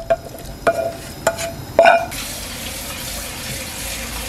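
A wooden spatula scrapes and knocks against a stone-coated frying pan, with four ringing knocks in the first two seconds, as stir-fried pork and onion are tipped into an earthenware pot. About two seconds in, this gives way to a steady hiss from the pot of soft tofu stew heating on the stove.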